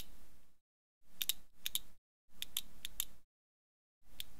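Clockwork clicking of wind-up toy dolls, in about four short bursts of sharp paired clicks with dead silence between them.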